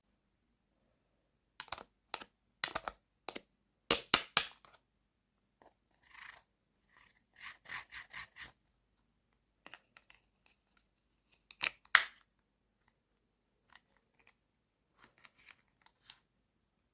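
Miniature toy kitchen pieces and their packaging being handled: scattered sharp clicks and taps, the loudest about four seconds in and again near twelve seconds, with a quick run of about five crinkling scrapes in the middle.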